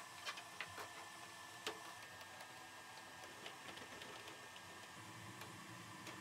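Faint, sparse clicks and taps of 3D-printed plastic model-airplane parts knocking together as the tail and horizontal stabilizers are handled; most of the clicks come in the first two seconds.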